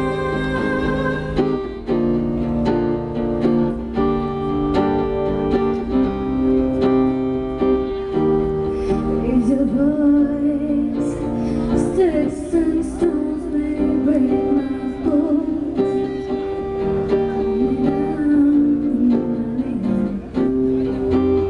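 A woman singing, amplified through a microphone, over her own steadily strummed acoustic guitar chords.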